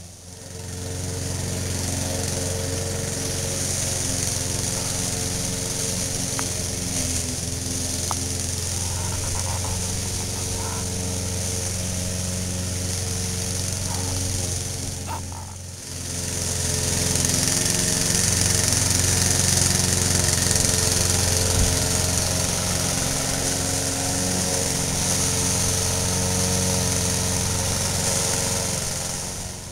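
Lawn mower engine running steadily under load while mowing. It drops away briefly about halfway through, then carries on a little louder.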